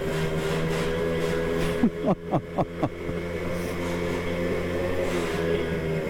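Simson two-stroke moped engine running at a steady pitch inside a concrete parking garage, with a quick run of four or five short sounds falling sharply in pitch about two seconds in.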